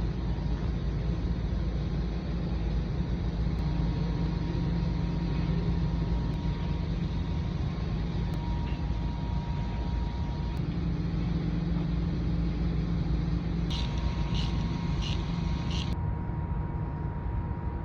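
Steady low motor-vehicle rumble, with four short high-pitched rasps in quick succession near the end.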